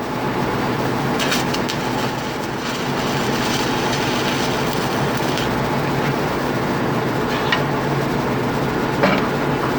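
Steady, loud machinery noise of a ship's engine room, a constant hum and rush, with a few light metallic clicks and knocks about a second in, near the middle and near the end.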